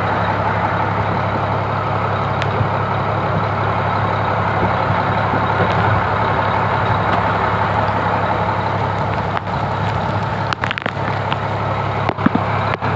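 Fishing boat's engine running steadily with a deep, even hum.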